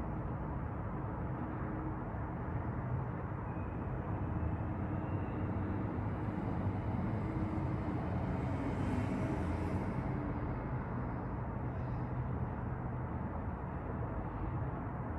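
City street traffic heard from high above: a steady low rumble of vehicles, with a fainter hiss swelling and fading around the middle.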